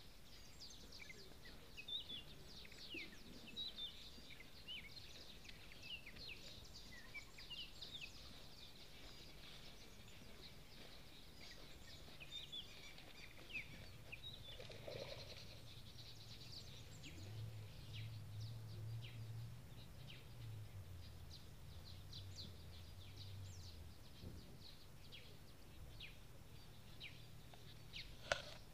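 Many small birds chirping and calling in short, quick notes, faint against the outdoor background. Through the middle stretch a faint low drone hums underneath.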